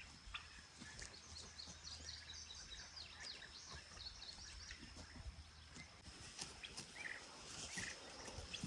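Faint outdoor ambience with small birds chirping: a quick run of short, high chirps a few seconds in, and more scattered calls near the end, over a faint low hum.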